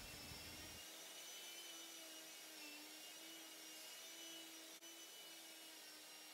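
Very faint, steady whine of a Ryobi random orbital sander with a dust-extraction vacuum hose attached, sanding a walnut board.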